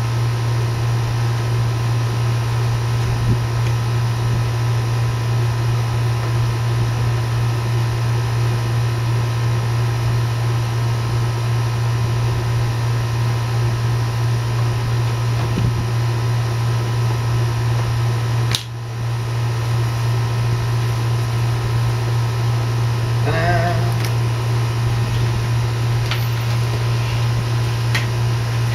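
Steady low machine hum, like a fan or air conditioner, running unbroken with a faint steady higher tone over it. It dips briefly about two-thirds of the way through, with a few faint clicks and a short wavering squeak near the end.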